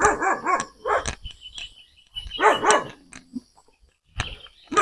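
A dog barking in bursts: a quick run of barks at the start, more about two seconds in, and again near the end.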